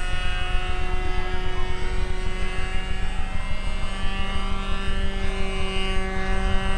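Fox .45 two-stroke glow engine of an RC model airplane in flight, a steady high-pitched propeller buzz whose pitch shifts a little about three seconds in as the plane moves through the sky.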